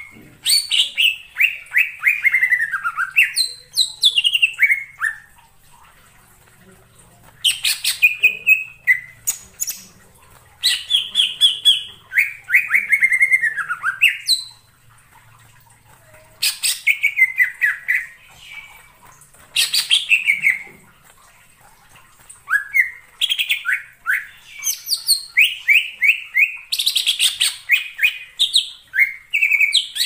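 Green leafbird (cucak ijo) singing a varied song of quick sliding notes that swoop up and down. It comes in phrases of one to several seconds, with short pauses between them, and the longest run is near the end.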